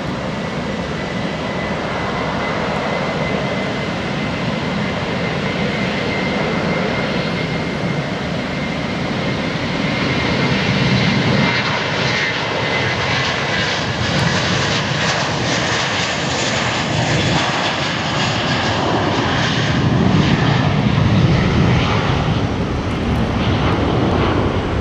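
Airbus A321-232's twin IAE V2500 turbofan engines at takeoff power through the takeoff roll and liftoff: a steady jet rumble with a thin high whine in the first half, growing louder as the plane speeds past and loudest shortly before it rotates.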